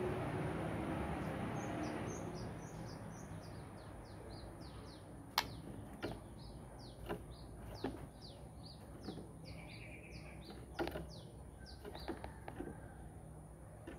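White-rumped shama (murai batu) calling: a steady run of short, high, downward-sliding chips, a few a second, with a handful of sharp knocks between them. A low rumble fades out in the first couple of seconds.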